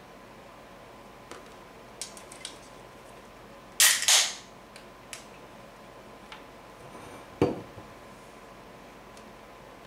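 A tall can of malt liquor cracked open about four seconds in: a sharp crack and a half-second hiss, the loudest sound here. A few light handling clicks come before it, and there is a dull knock about three seconds later as the can is set down on a stand.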